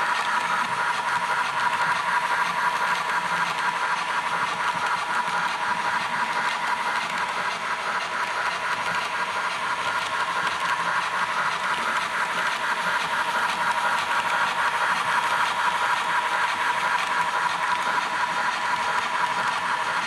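Fleischmann model train, headed by a P 10 steam locomotive with a DCC sound decoder, running steadily: a constant whine with a fast, even rhythm over it.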